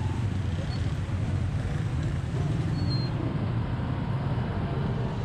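Busy street traffic: a steady low drone of motorcycle and rickshaw engines under the general noise of a crowded market street.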